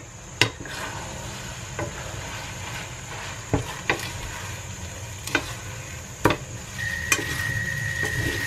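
Rice noodles and vegetables sizzling in a stainless steel pan while being tossed with a wooden spatula and a fork, with sharp clicks and knocks of the utensils on the pan every second or so. A thin steady high tone comes in near the end.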